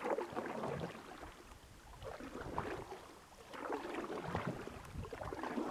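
Water lapping softly and irregularly against the hull of a small fishing boat.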